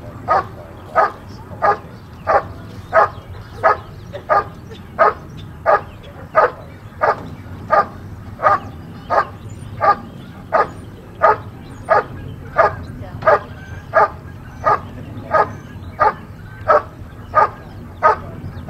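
German Shepherd barking steadily and rhythmically at a helper in a protection blind, about one and a half barks a second: the hold-and-bark guarding exercise of protection sport.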